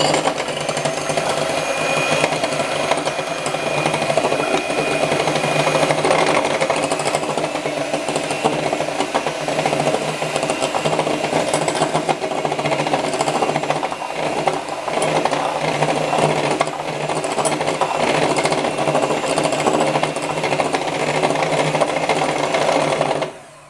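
Handheld electric mixer running steadily, its beaters whisking raw eggs in a glass bowl; it switches off near the end.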